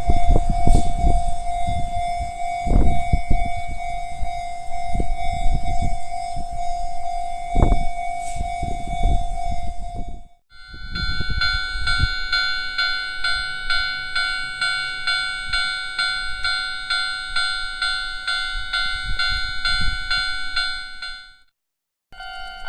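Japanese railway level-crossing warning bells, two different crossings one after the other. The first rings at a lower pitch over low rumbling and occasional heavy thumps; about ten seconds in it cuts to a second, higher-pitched crossing bell pulsing about twice a second.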